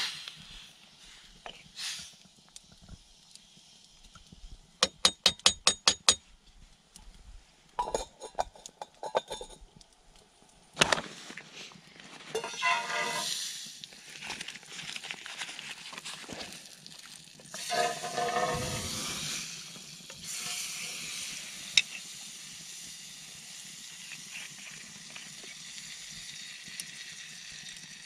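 Campfire cooking with a metal camp pot: a quick run of about eight sharp taps a few seconds in and a few more knocks soon after, then a steady sizzling hiss through the second half.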